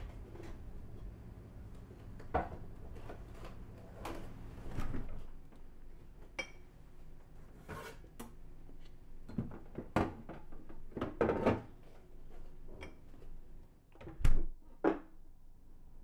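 Kitchen handling sounds: scattered knocks and clunks of containers being lifted from a refrigerator and set down, with one louder thump near the end.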